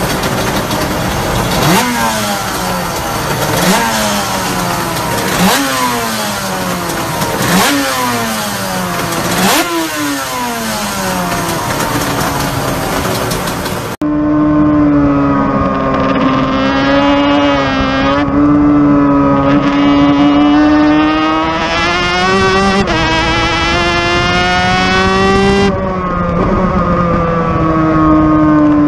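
Suter MMX 500 two-stroke V4 racing engine revved on a dyno: about five sharp blips, each pitch rising quickly and falling away over about two seconds. Then it is heard on board at speed, its note climbing slowly and dropping in steps near the end, as at gear changes.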